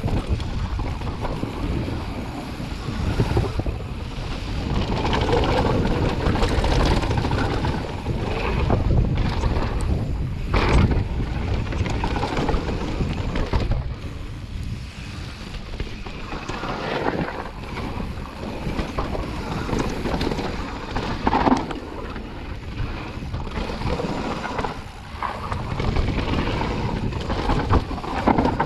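Mountain bike riding down a dirt trail: wind buffeting the microphone over a steady rumble of tyres, with occasional sharp knocks as the bike hits bumps.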